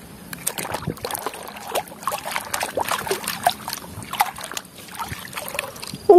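Muddy water sloshing and splashing in a plastic basin as a toy truck is dipped and scrubbed by hand: irregular splashes with no steady rhythm.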